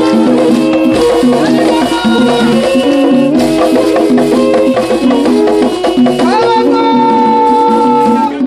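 Music with shaker or rattle percussion under a steady repeating melody. About six seconds in, a note glides up and is held until near the end.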